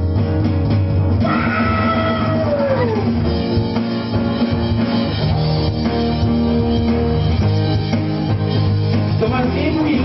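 Live band playing a rock song on acoustic guitar and keyboard, with a singer holding one long note about a second in that slides down and ends around three seconds.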